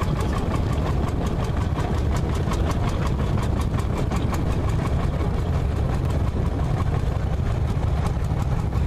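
Landini Bufalo vintage tractor's single-cylinder hot-bulb engine running under way, with a steady, even beat of sharp knocks.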